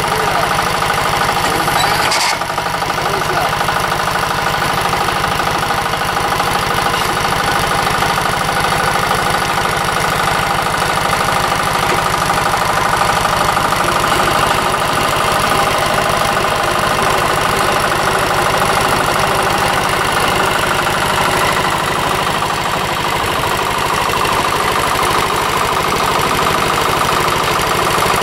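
Chinese 10-horsepower single-cylinder diesel engine on a Sears Suburban ST16 garden tractor, running steadily with its even diesel knock while the tractor is driven, exhausting through an open upright pipe.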